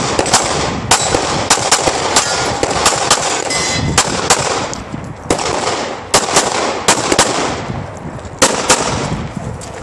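Semi-automatic pistol fired rapidly, mostly as quick pairs of shots with short pauses between strings, each shot echoing.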